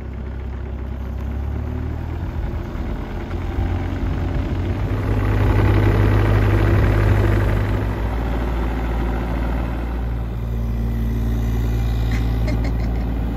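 John Deere 35G mini excavator's diesel engine running as the machine travels on its rubber tracks over dirt and grass, a steady low engine note with track noise, loudest about five to eight seconds in as it passes close.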